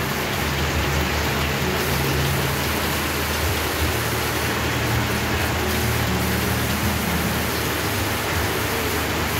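Steady rushing noise with a low hum underneath, unchanging in level throughout.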